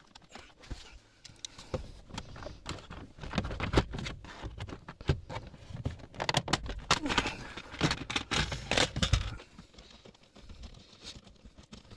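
Hands working on a Peugeot Partner's plastic lower dashboard trim: a screwdriver on a trim screw, then panels being handled and pulled. Irregular clicks, knocks and rustling, busiest in the middle and dying down near the end.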